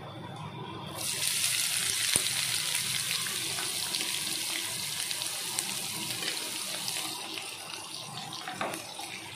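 Sliced onions hitting hot mustard oil in a kadhai: a loud sizzle starts suddenly about a second in and slowly eases off as a wooden spatula turns them.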